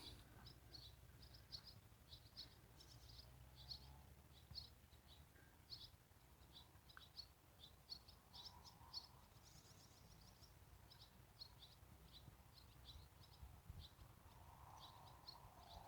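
Faint, high-pitched short calls of common swifts, repeated many times over a low background rumble.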